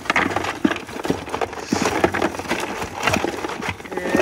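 Live mullet being emptied from a cast net into a plastic cooler: a quick, irregular run of knocks and slaps as the fish flop against the cooler and the net's lead weights clatter in.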